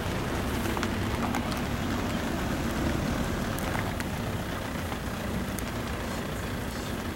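Heavy rain falling on and around an open game-drive vehicle, with scattered sharp drops striking close by, over the low steady running of the vehicle's engine.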